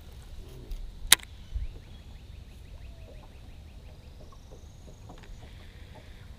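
Birds calling over quiet open-air ambience: a quick run of faint high ticks and a thin whistle. A single sharp click sounds about a second in.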